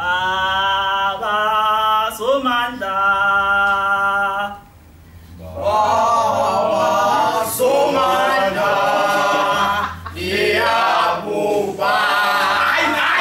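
Isicathamiya-style male a cappella singing. A single voice holds long notes, stepping in pitch a couple of times, for about four seconds. After a brief pause, the group comes in together in close harmony.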